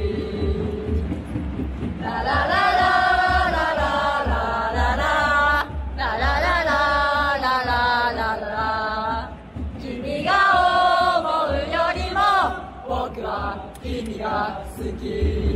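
Football supporters singing a chant together, in sung phrases of a few seconds with short breaks between them.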